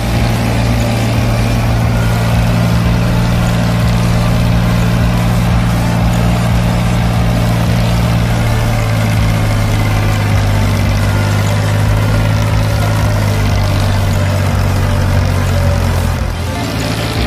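Ford 3620 tractor's diesel engine running steadily at a constant pitch while pulling a tiller through hard ground.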